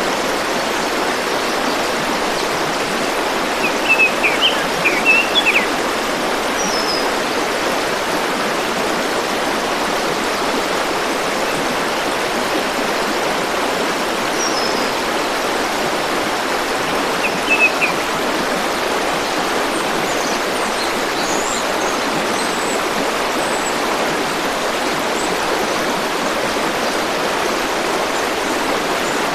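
A stream rushing steadily, with a few short bird chirps over it, mostly in two clusters several seconds in and around the middle, and fainter high chirps later.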